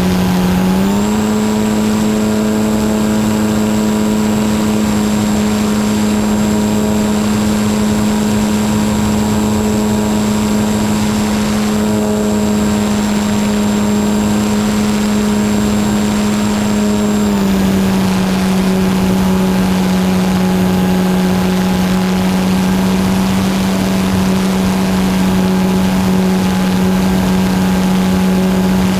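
Electric motor and propeller of a HobbyZone Super Cub RC plane whining steadily, heard close from the onboard camera, over a constant hiss. The pitch steps up about a second in and steps back down at about 17 seconds.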